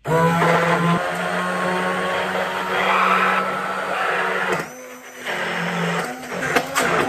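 Corded electric hand blender motor switched on and running at a steady whir, cutting out for about half a second roughly five seconds in, then running again more unevenly toward the end.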